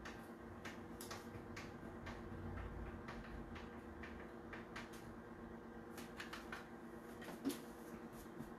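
Quiet handling noise as a hot glue gun is worked along fabric: scattered soft clicks and taps over a steady low hum.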